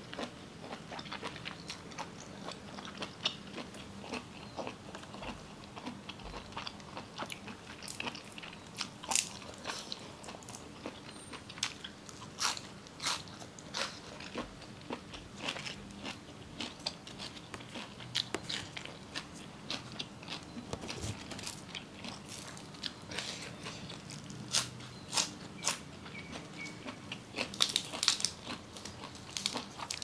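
A person chewing and crunching mouthfuls of spicy octopus salad with raw vegetables such as lettuce, close to the microphone. Crisp crunches and bites come at irregular intervals throughout.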